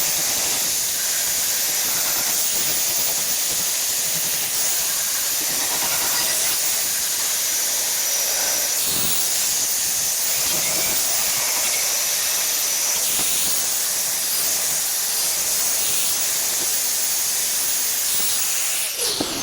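TIG welding arc on stainless steel, a steady hiss that cuts off just before the end.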